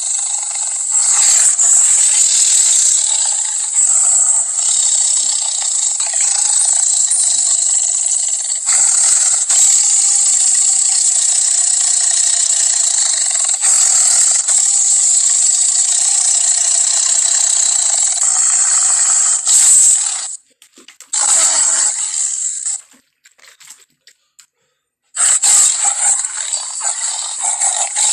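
Indoraptor creature sound effect: long, harsh, high-pitched noisy calls with no deep rumble, broken by short pauses about twenty seconds in and then near silence for about two seconds before the calls resume.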